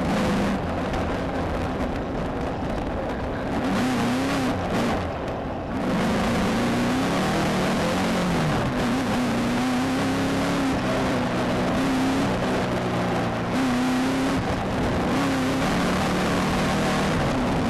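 VW Beetle desert race car's engine running hard, its note rising and falling with the throttle, under a steady loud noise of the car over rough dirt. The engine note sags about five seconds in, then picks back up.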